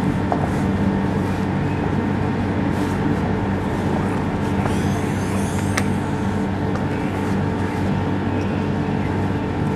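Steady road-traffic noise with a low, droning engine hum.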